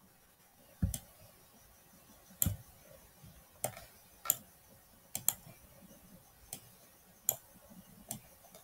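Computer mouse clicking: about nine short, sharp clicks at irregular intervals, a second or so apart, over faint room tone.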